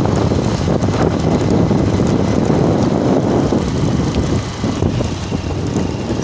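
Wind buffeting the microphone of a moving two-wheeler, with the steady drone of its engine and tyres underneath; it eases a little after about four seconds.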